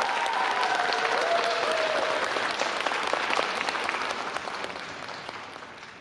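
Audience applauding, the clapping fading away steadily toward the end.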